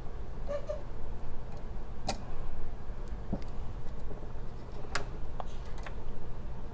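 Light metallic clicks and taps from small revolver lockwork parts and a steel pick being handled during reassembly, a few scattered clicks with the sharpest about two and five seconds in, over a low steady hum.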